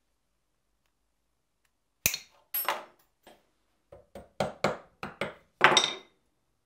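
A small ball-peen hammer tapping a copper wire ring onto a turned steel plug resting on a wooden bench: about eight light, sharp metal taps with a short ring, the loudest near the end.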